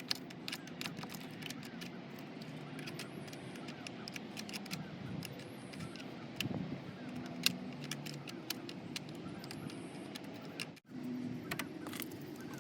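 Scattered light metallic clicks and clinks of a spanner working on car battery terminal clamps as they are refitted and tightened.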